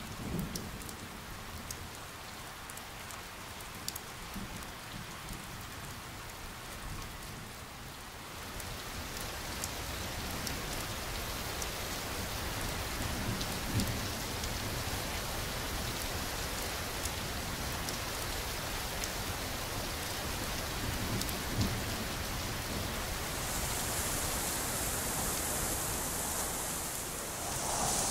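Steady rain ambience that grows heavier about eight seconds in, with a couple of soft low rumbles of thunder.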